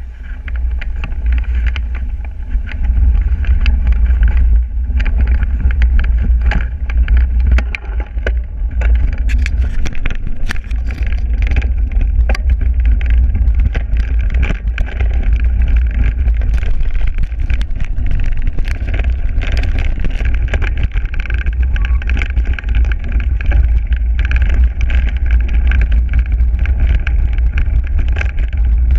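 A mountain bike riding a dirt forest trail, heard through a handlebar-mounted GoPro: a loud, steady low rumble of wind and trail vibration on the camera, with frequent sharp clicks and rattles as the bike runs over bumps.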